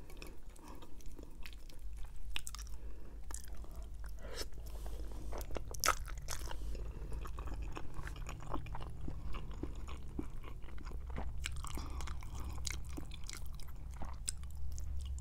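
Close-miked chewing and biting of rotisserie chicken, with many small crisp crackles and wet mouth clicks. A low steady hum runs underneath from about two seconds in.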